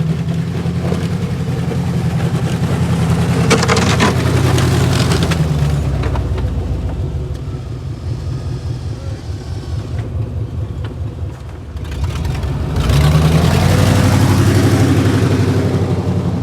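A vehicle engine running and revving. It rises to a peak a few seconds in and eases off through the middle, then surges again sharply about 13 seconds in.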